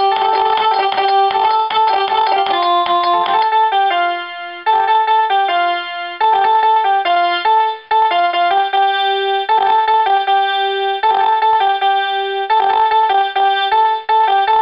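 Instrumental music on an electronic keyboard: a simple melody played in clean, held notes that step up and down.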